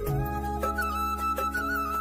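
Background music: a flute melody in a folk style over sustained drone tones and a steady beat.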